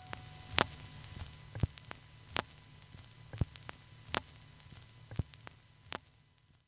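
Vinyl record surface noise: the stylus riding the groove, with sharp pops about once a second over a faint low hum, fading out near the end.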